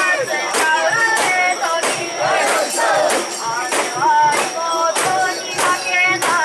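A crowd of mikoshi bearers chanting and shouting together as they carry the portable shrine. Sharp strikes sound through it in a steady rhythm, about two to three a second.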